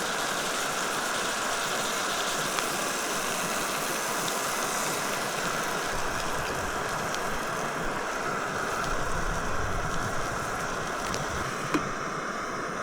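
Steak, potatoes and eggs frying in beef tallow in a pan, a steady sizzle.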